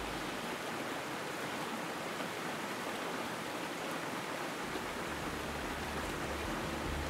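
Steady rushing of a shallow river flowing over rocks, with a low rumble coming in about two-thirds of the way through.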